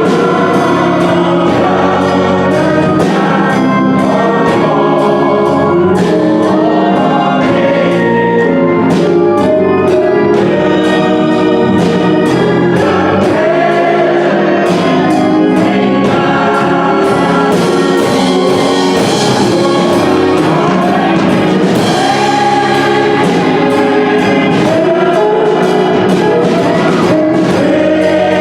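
A church choir singing a gospel song with instrumental accompaniment.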